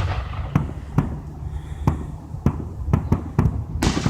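Aerial fireworks going off, a run of sharp bangs roughly every half second over a low rumble, with a louder burst near the end.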